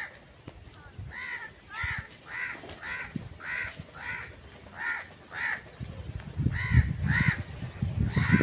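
A bird calls over and over in short, harsh calls, about two a second with brief pauses. A low rumbling noise grows louder under the calls in the last couple of seconds.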